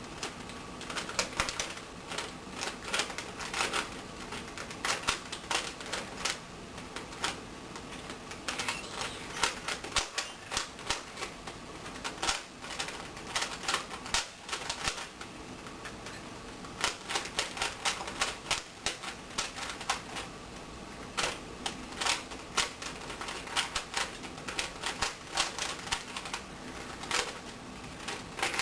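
A 3x3 Rubik's Cube being turned rapidly by hand: quick runs of plastic clicking and clacking as the layers twist, broken by a few short pauses between runs of moves.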